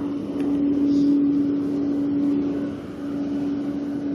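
Engines running steadily: a constant low hum over an even rushing noise.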